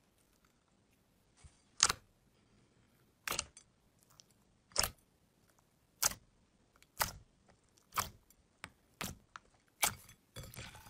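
Fingers poking into glossy green slime topped with sprinkles. Each poke traps and bursts air, making a short, sharp wet pop or click. The pops come about once a second, nine or so in all.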